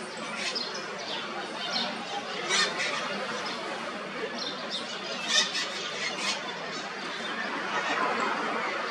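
Short, high bird calls, a few scattered chirps standing out about a third of the way in and again past the middle, over a steady outdoor hiss.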